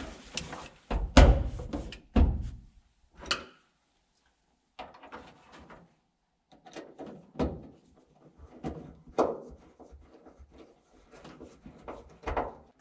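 Plastic interior trim panel being pressed and fitted onto a pickup cab's rear pillar by hand: a series of irregular knocks, taps and thumps with rustling between them, the loudest a little after a second in.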